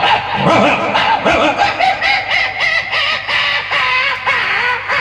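A man's voice imitating two dogs fighting: a rapid string of short barks and yelps.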